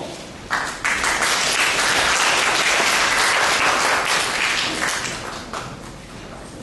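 Audience applauding, beginning about half a second in and dying away over the last couple of seconds.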